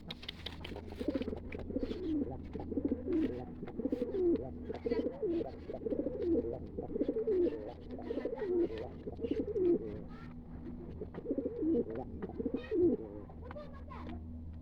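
Pigeon cooing in a long run of low coos, one after another, with scattered light clicks and a steady low hum underneath.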